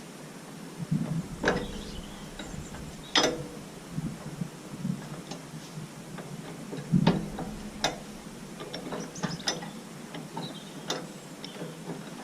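Irregular metallic clicks and knocks of hand tools at work on the roller's frame and bearing block, with a few louder knocks.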